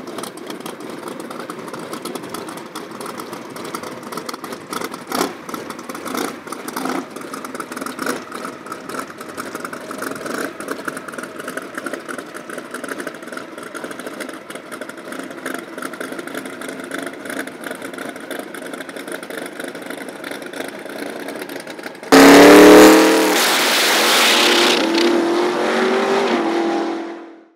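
Turbocharged big-tyre drag race car idling on the start line, with a few short revs in the first several seconds. About 22 seconds in it launches at full throttle, much louder, and fades as it runs away down the strip.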